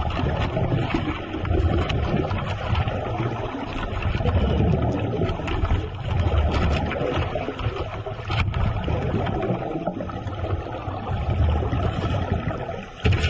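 Water rushing and sloshing in a continuous low rumble that swells and eases every second or two.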